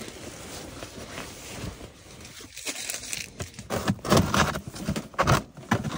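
Handling noises: rustling fabric, then irregular knocks and scrapes from about three seconds in as a small plastic cooler is shifted into place beside a portable propane heater.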